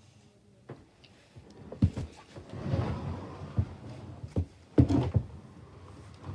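A few dull knocks and thumps with rustling between them, from a person moving about close to the microphone.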